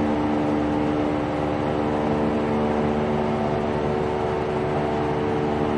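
PVD vacuum coating machine running a coating cycle: a steady machine hum made of several held tones over a noisy rush.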